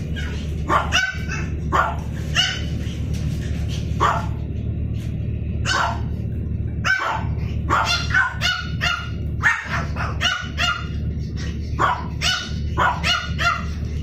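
Dogs barking in many short, sharp barks, coming in quick runs about halfway through and again near the end, over a steady low hum.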